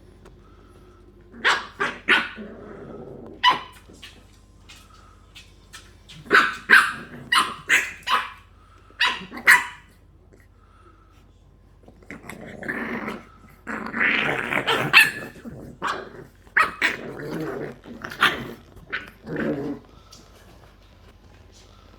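English bulldog puppies growling and yapping as they play-fight: clusters of short yaps, with a longer stretch of growling about midway.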